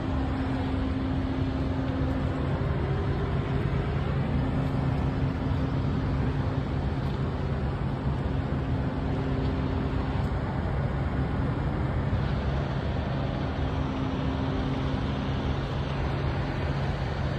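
Steady motor-vehicle engine running with traffic noise: a constant low hum with a higher tone that fades in and out every few seconds.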